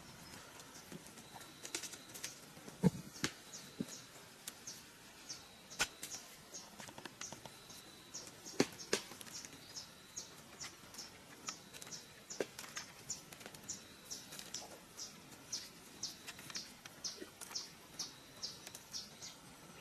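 Hollow knocks of green bamboo poles being handled and set down, the sharpest about 3 s and 9 s in, over a steady series of short high chirps at about two a second.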